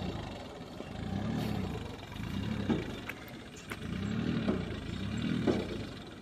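Massey Ferguson 245 DI tractor's three-cylinder diesel engine running on cage wheels, its pitch and level swelling and sinking about once a second as the load comes and goes, with a few light clatters.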